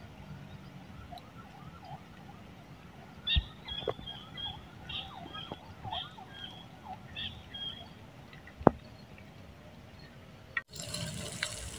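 Pandan leaves frying in oil in a pan over a campfire, a faint sizzle. In the middle a bird calls a rapid run of short high chirps. Two sharp clicks stand out, about three seconds in and again near nine seconds.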